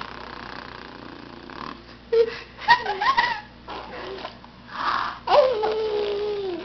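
Baby vocalising without words: a few short squeaky coos about two to three seconds in, a breathy huff, then one long drawn-out vocal sound slowly sinking in pitch near the end.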